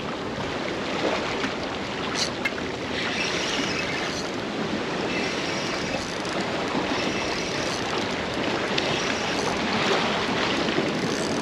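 Inlet water washing and splashing against the rocks of a jetty, a steady rush of moving water, with a couple of faint clicks a little over two seconds in.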